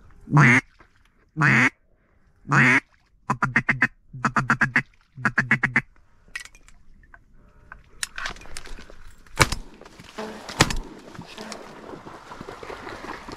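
Mallard duck call blown close by: three long, loud quacks, then three quick runs of short quacks. Later, two sharp shotgun shots ring out, followed by rustling.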